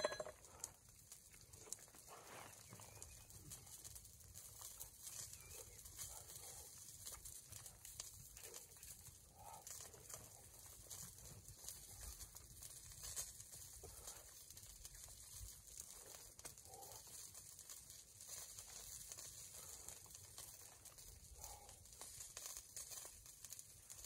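Near-silent outdoor ambience: a faint, steady high hiss with light ticking, and several faint, distant animal calls a few seconds apart.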